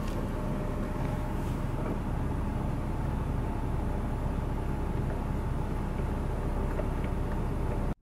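Car engine idling, a steady low hum heard from inside the cabin; it cuts off abruptly at the very end.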